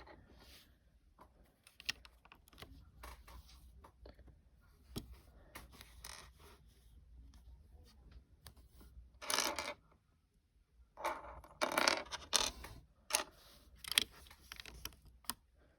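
Small plastic Lego pieces being handled and pressed together: scattered light clicks, with two louder bursts of rattling about nine and eleven seconds in, and a run of sharper clicks near the end.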